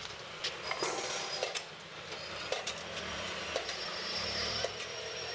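Steady street-traffic background with scattered sharp metallic clicks and ticks.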